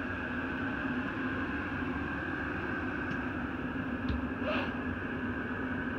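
Steady background hum and hiss of a small room, with a faint knock about four seconds in.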